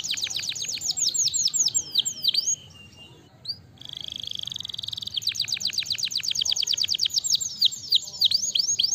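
Domestic canary singing: fast runs of downward-sweeping notes, a short pause about two and a half seconds in, then a steady rapid trill and more quick runs of sweeping notes.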